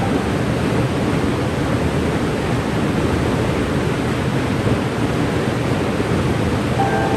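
Cane River Falls waterfall: a steady, even rush of falling water.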